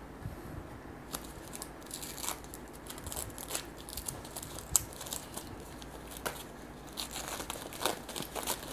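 Plastic packaging crinkling and rustling by hand as a cable is freed from its wrapping, with scattered small clicks and one sharp click about five seconds in.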